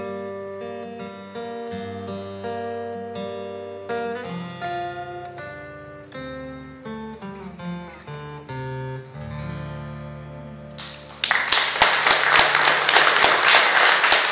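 Steel-string acoustic guitar playing the song's closing bars, single picked notes and chords that ring out. About eleven seconds in, audience applause breaks out suddenly and is the loudest sound to the end.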